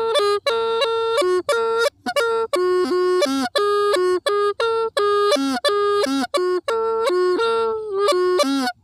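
Hmong bamboo flute (raj les le) played solo: a tune of short, separate notes moving among a few neighbouring pitches, with a bright, reedy tone and small slides at the ends of notes. The playing stops abruptly near the end.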